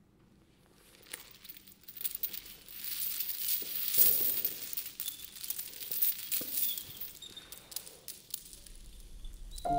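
Steel chains rattling and clinking as the body wrapped in them shifts and rises, a dense run of small metallic clicks that starts about a second in, is loudest around the middle and thins out near the end.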